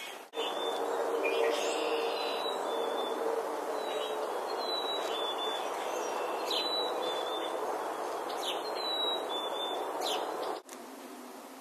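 Steady loud noise, of the continuous kind complained of as corporate or industrial noise, with birds chirping briefly and repeatedly over it. It starts just after the beginning and cuts off suddenly near the end.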